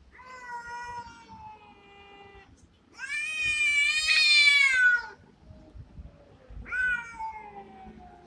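Domestic cats yowling at each other in a territorial standoff: three long, drawn-out caterwauls. The middle one, about three seconds in, is the loudest and highest, and the last one falls in pitch.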